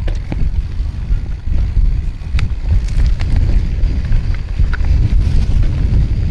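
Wind buffeting the microphone of a camera on a moving mountain bike, a heavy continuous rumble, with scattered sharp clicks and rattles from the bike over the trail.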